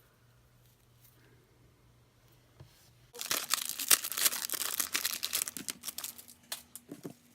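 Packaging crinkling and crackling as it is handled and opened, a dense run of crackles for about four seconds starting about three seconds in, after a quiet stretch.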